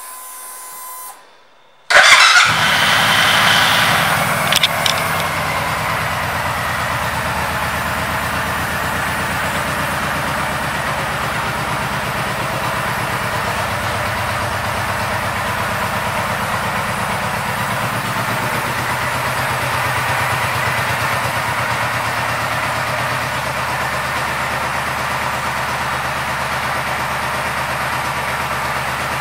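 Suzuki Boulevard C90 V-twin motorcycle engine starting about two seconds in. It catches at once and revs up briefly, then settles into a steady idle.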